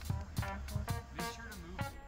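Background music with a steady beat, about two hits a second, under pitched instrumental notes.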